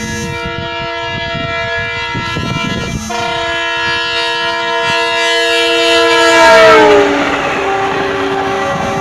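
Diesel locomotive horn held in one long multi-note blast as the engine approaches at speed, growing louder. As the locomotive rushes past about seven seconds in, the horn drops in pitch, and the rush of the engine and its wheels on the rails follows.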